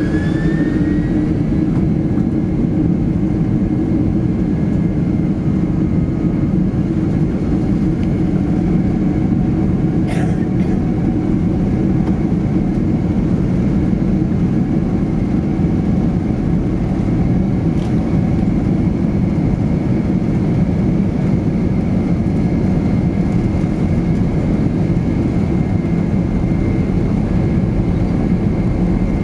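Jet engine noise inside the cabin of a Boeing 767-300ER taxiing: a steady rumble with a thin engine whine that rises in pitch about a second in, then holds steady.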